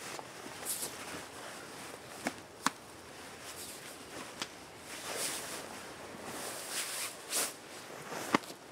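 Sleeping bags being shaken out and spread over a sleeping pad: the fabric rustles and swishes in repeated surges, with a few sharp clicks in between.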